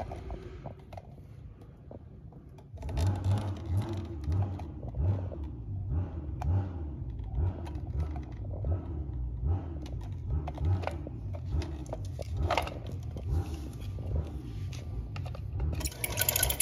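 Low, uneven rumbling handling noise with scattered knocks and clicks as a Singer 221-1 Featherweight sewing machine is tipped and its underside and base plate are handled. The rumble sets in about three seconds in, and the sharpest knocks come near the end.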